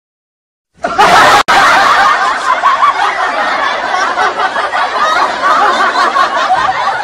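Laughter sound effect, many voices laughing together, starting after about a second of silence and cutting off abruptly at the end.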